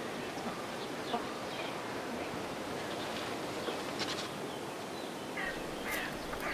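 Forest ambience: a steady hiss of background noise with scattered short bird calls, several in quick succession near the end.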